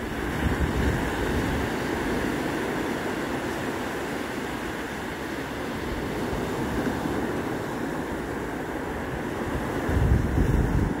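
Ocean surf on a sandy beach: a steady wash of small breaking waves running up the sand and drawing back. Wind buffets the microphone in a low rumble near the end.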